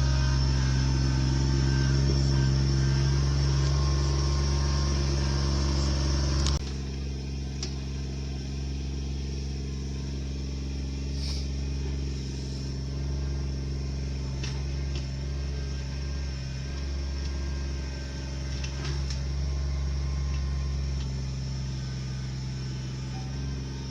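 An engine running steadily at a constant pitch. About six and a half seconds in it drops suddenly to a quieter level, with a few faint clicks afterwards.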